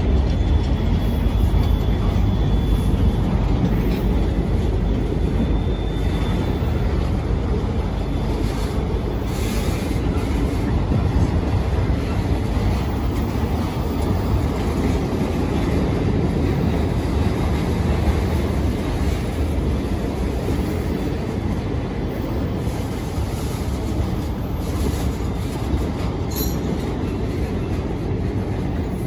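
Norfolk Southern welded-rail train's loaded rail flatcars rolling past: a steady rumble of steel wheels on the rails. A faint high squeal comes in briefly about a second in and again around six seconds.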